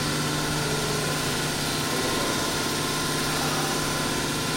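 Mercury-arc rectifier in operation, giving off a steady electrical hum with a strong low tone and a higher buzz over it.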